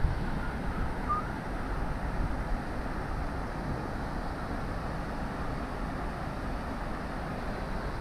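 Wind buffeting the microphone, a steady low rumble, over a continuous background rush of water from a weir.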